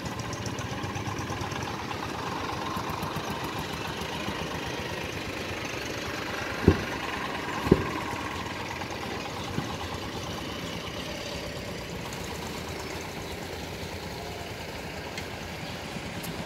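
Small trucks' engines running as they drive slowly across a railway level crossing, over a steady traffic background. About halfway through come two sharp low thumps about a second apart.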